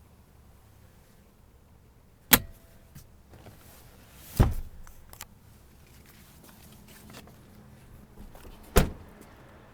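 Three sharp clunks inside a pickup's crew cab: the rear seat cushions being flipped up and dropped back down. The first comes a couple of seconds in, the second has a short rattle after it, and the last comes near the end.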